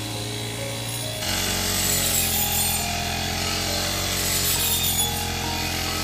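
Small engine of a rice harvester running steadily under load, getting louder and noisier a little over a second in.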